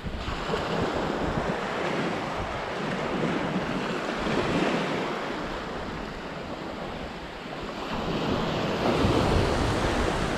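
Small waves breaking and washing up a sandy beach in calm conditions, swelling twice, about halfway through and near the end, with wind on the microphone.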